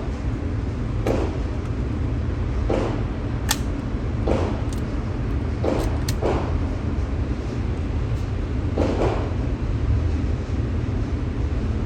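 Gunshots at a shooting range, muffled and echoing: about nine irregularly spaced reports, with one sharper crack about three and a half seconds in, over a steady low rumble.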